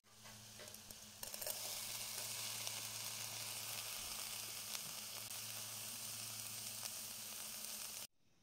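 Grated carrots and barberries sizzling in hot oil in an aluminium pot, a steady dense sizzle that swells sharply about a second in as the barberries land, with small crackles while they are stirred. It cuts off abruptly near the end.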